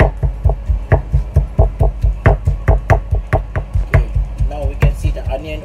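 Granite pestle pounding onion and garlic in a granite mortar, a steady run of heavy dull thuds about four to five a second.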